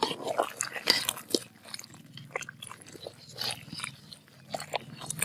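Irregular clicks, clinks and crackles around a pot of simmering vegetable and chicken soup as a ladle is worked in it, loudest about a second in.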